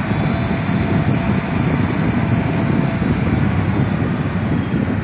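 Heavy diesel engine of an earthmoving machine running hard and steady under load, a deep rumble with a steady high whine over it.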